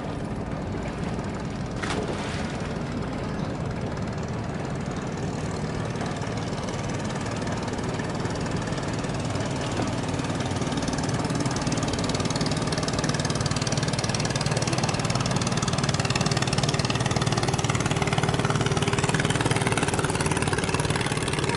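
Boat engine running steadily with a low hum, getting gradually louder.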